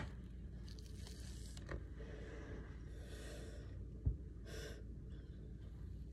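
Quiet room tone with faint handling sounds: a soft knock about four seconds in, then a short breath.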